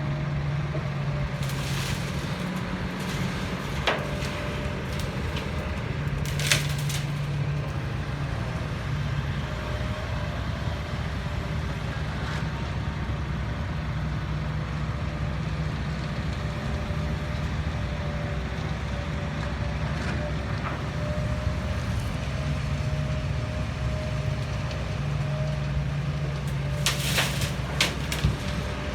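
Heavy diesel construction machinery running steadily, its engine note swelling and easing every few seconds as it works under load, with a few sharp knocks, one about four seconds in, another a couple of seconds later, and a cluster near the end.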